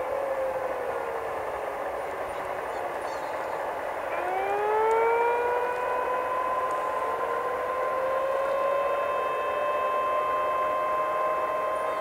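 Outdoor community warning sirens wailing. A tone slides down early on; then about four seconds in the sirens wind up in a rising wail and level off into a steady howl, with several pitches sounding together.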